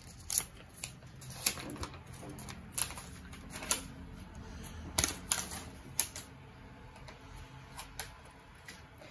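About a dozen light, sharp clicks and taps at uneven intervals, the sound of small objects being handled, over a faint low background hum.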